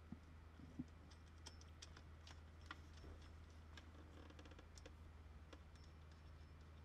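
Near silence with faint, irregular clicks and a few light taps as hands handle the engine's rubber coolant hoses and their spring clamps, over a low steady hum.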